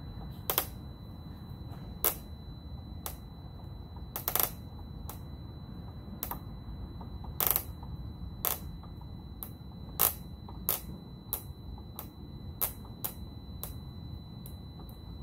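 Irregular sharp clicks of plastic trim pieces and plastic screws being fitted and driven by hand on a motorcycle's cockpit, one every half second to a second and a half, over a faint steady high tone and a low background rumble.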